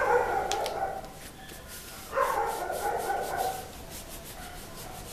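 A dog's voice, two drawn-out calls: the first about a second long at the start, the second beginning about two seconds in and lasting a little longer.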